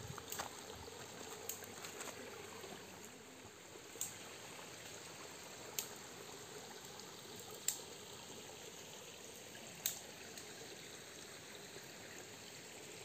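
Running water trickling steadily, with four faint sharp clicks about two seconds apart.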